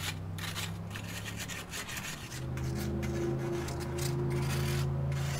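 A grill stone scrubbed back and forth over greasy barbecue grill grates, making repeated rough rubbing strokes, over a low steady hum.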